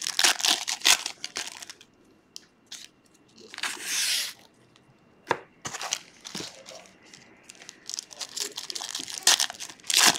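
Foil trading-card pack wrappers crinkling and being torn open by hand, in irregular bursts with a longer smooth tear about four seconds in.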